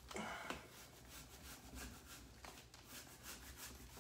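Faint rubbing and scuffing of hands pressing glued cover paper down onto a book, with a short scuff at the start and a fainter one about halfway through.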